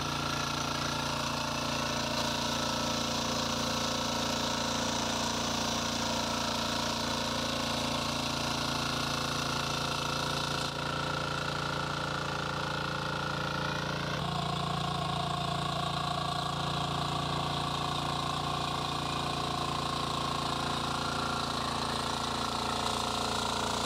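Shrachi power weeder's engine running steadily as the walk-behind machine is driven along the crop rows, a constant engine note whose pitch shifts slightly twice partway through.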